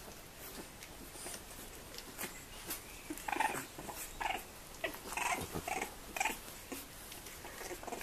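Young bulldog puppies whimpering and squeaking, about six short calls in quick succession from around three seconds in, with light scuffling and clicks of paws on a blanket.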